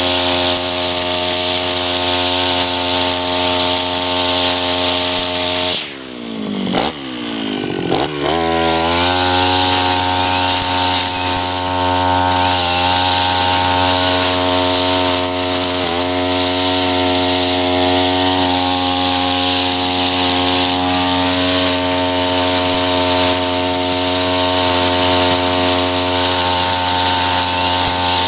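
Tabata 32 cc two-stroke backpack brush cutter running at high throttle while its eight-line nylon trimmer head cuts tall grass. About six seconds in, the engine drops off and falls in pitch, then revs back up to full speed about three seconds later.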